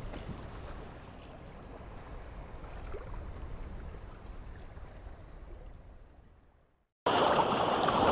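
Faint wind-and-water ambience of a boat at sea with a low rumble, fading out to silence. About a second before the end, a loud rushing sound of spray and wind cuts in suddenly.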